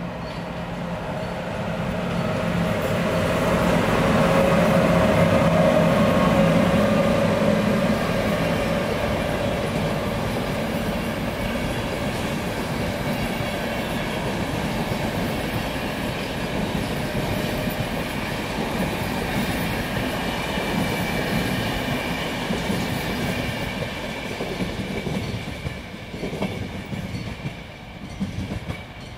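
A train passes close by. The locomotive's engine tones build and peak about five seconds in, then a long line of wagons rolls past with steady wheel-on-rail noise, fading away near the end.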